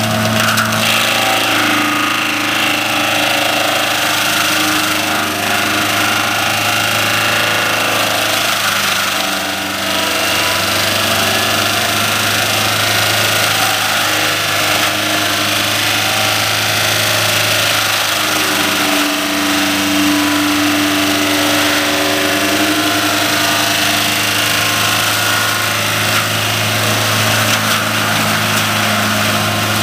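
John Deere 7530 tractor's six-cylinder diesel engine running under load, powering an 8-foot PTO-driven mulcher whose rotor grinds brush into mulch. A loud, steady machine noise.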